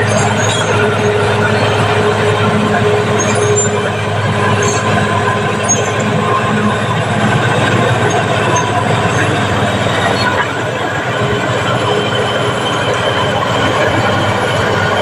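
Caterpillar D6R bulldozer working: its diesel engine running steadily under the metallic squeal and clatter of its steel tracks.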